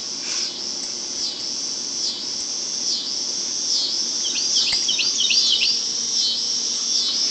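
A steady, high-pitched insect chorus that pulses about once a second, with a quick run of short chirps about four to five and a half seconds in.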